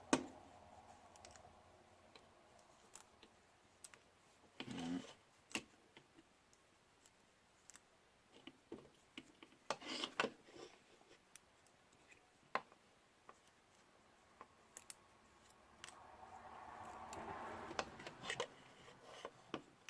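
Faint, scattered clicks and taps of small plastic and metal parts being handled, with a few brief louder rustles.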